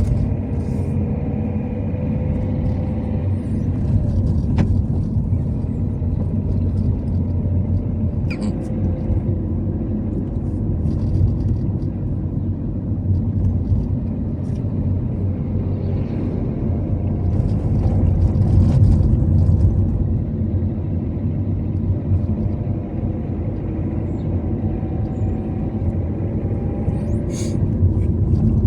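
Car driving along a road: steady engine and road rumble with slight shifts in engine pitch.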